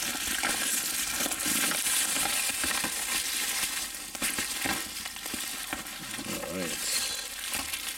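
Plastic bubble wrap crinkling and rustling continuously as hands pull it off a boxed chess set, with scattered sharp crackles.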